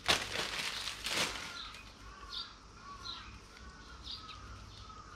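Crinkling rustle of a sheet of glass wool being handled for about the first second, then a small bird chirping repeatedly, short arched notes about twice a second.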